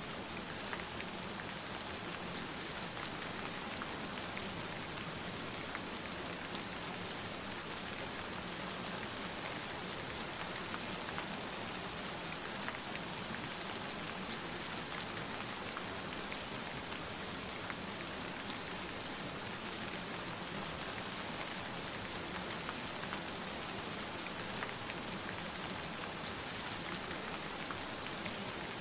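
Gentle, steady rain falling, an even hiss with scattered individual drop ticks.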